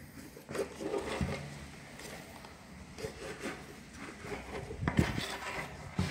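Handling noise of a plastic bicycle helmet and clip-on helmet mirror being pressed and turned in the hands as the mirror's adhesive mount is pushed onto the shell: soft rubbing and scraping with light knocks, and a sharper knock about five seconds in.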